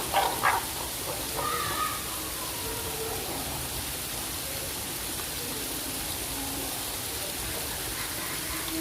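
Steady rushing, rain-like noise, with a few short high-pitched calls in the first two seconds.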